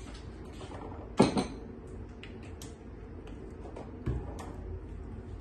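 Kitchen handling sounds: a utensil clicking against a porcelain bowl of beaten egg, a sharp knock about a second in, and a thud about four seconds in as the bowl is set down on the countertop.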